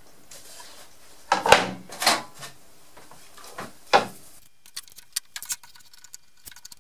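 Boards of MDF with a softwood batten being handled on a workbench top: a few knocks and scrapes as they are moved and set down, the last clear knock about four seconds in, then only faint small clicks.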